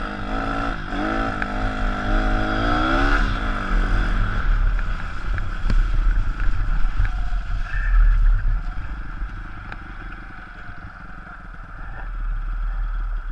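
160 cc pit bike's single-cylinder engine revving, its pitch rising and falling over the first few seconds. It grows louder and rougher, with a low rumble, while crossing a muddy stretch about five to nine seconds in, then eases off and picks up again near the end.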